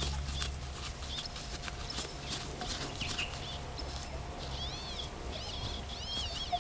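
A bird calling with swooping, arching whistles that rise and fall, repeated several times from about four and a half seconds in. Before that there are scattered light ticks and scuffs, with a faint steady hum underneath.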